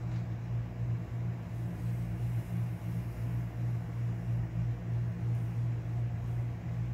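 A steady low mechanical hum that wavers slightly, with a faint hiss above it.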